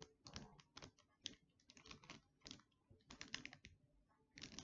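Faint, irregular crackling and clicking of a sticky paper instruction label being peeled off the plastic body of an Amazon Fire TV Cube, with denser bursts around three seconds in and near the end.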